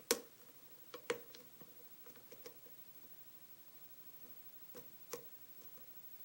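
Light metallic clicks and taps from a lock pick working the pins inside a Kwikset pin-tumbler lock during single-pin picking. They come as a scattering of isolated sharp clicks, a few close together about a second in and again about five seconds in.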